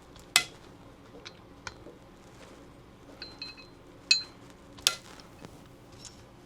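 Small metal clicks and clinks of hand tools as the optic plate screws are torqued down to about 13 inch-pounds on a pistol slide. They come as scattered single sharp clicks, the loudest about half a second in and around four and five seconds in.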